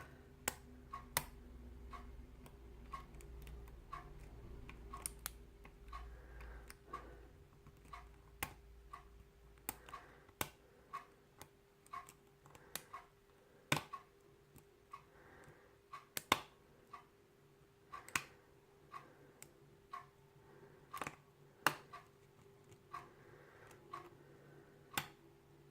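Lock pick clicking against the pins inside a pin tumbler lock as they are probed and set one by one. The clicks are sharp, small and irregular, about one or two a second, some louder than others.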